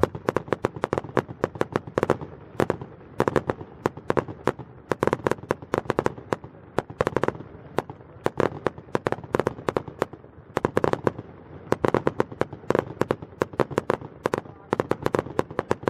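Aerial fireworks going off in a rapid, unbroken string of sharp bangs and pops, several a second, some louder than others.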